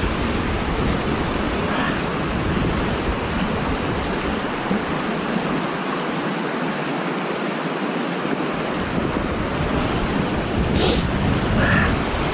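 Steady rush of water pouring over a low dam spillway and running through the shallow pool below. A low rumble, likely wind on the microphone, drops away for a few seconds in the middle.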